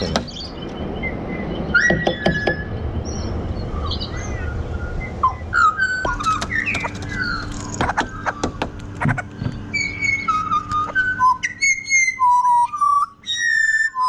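Pied butcherbirds singing: clear, fluting whistled notes and gliding phrases, turning in the second half into a run of pure whistles that step from one pitch to another. A few sharp clicks are heard among the notes.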